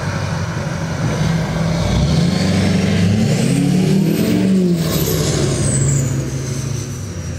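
Diesel pickup truck pulling away and accelerating, its engine note rising in pitch about halfway in, then dropping back and fading toward the end, with a faint high whine falling in pitch in the middle.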